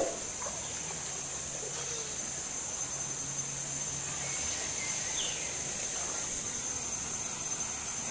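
Steady rush of water pouring over a small stone spillway into a spring-fed pool, with a constant high insect drone over it. A single thump right at the start.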